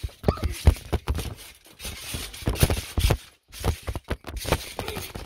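Irregular thumps and knocks of people jumping on a trampoline, picked up by a phone lying on the bouncing mat and being tossed about on it.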